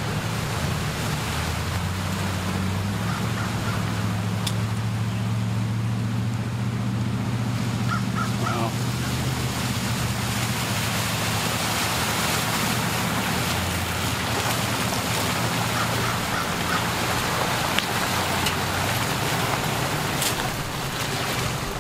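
A vehicle engine running steadily at low revs. A bird gives short calls about eight seconds in and again a little past halfway.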